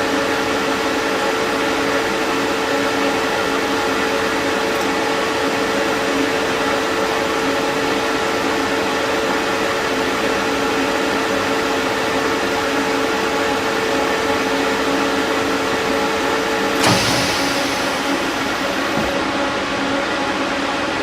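Lathe running with a steady mechanical hum and several held tones. About three-quarters of the way through, a short knock sounds and one steady tone drops out while the machine keeps running.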